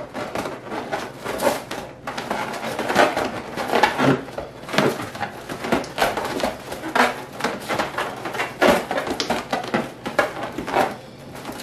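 Inflated 5-inch latex balloons squeaking and rubbing against each other as they are twisted and wrapped by hand, in an irregular run of short squeaks.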